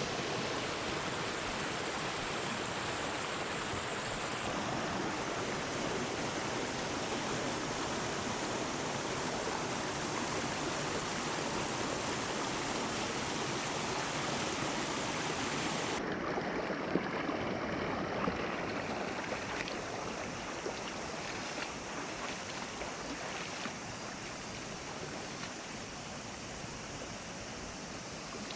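River water rushing steadily. Its tone changes abruptly about four seconds in and again about sixteen seconds in, and it is a little quieter towards the end.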